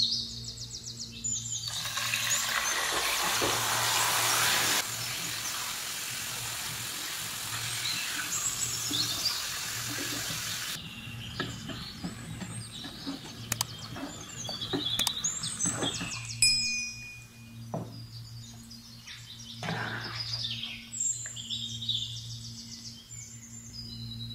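Chicken liver frying in olive oil in a stone-coated pan: a loud sizzle for several seconds that cuts off suddenly, followed by a spatula clicking and scraping as the liver is stirred. A bird chirps intermittently in the background over a steady low hum.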